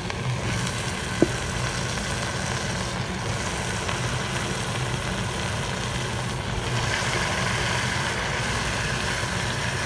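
Chicken pieces frying in hot oily masala in a pan, a steady sizzle over a low steady hum, with a single sharp clink about a second in.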